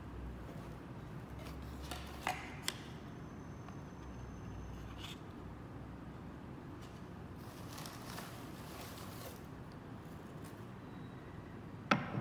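Soft rustling of shredded kraft-paper filler and cardboard as hands dig into a box, with two small clicks a couple of seconds in. Near the end comes one sharp knock as a wooden block is set onto a wooden toy boat.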